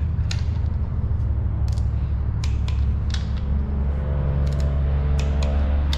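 Scattered sharp metal clicks from a torque wrench and its ratchet as the crankcase bolts are tightened to 10 N·m. Underneath is a steady low hum.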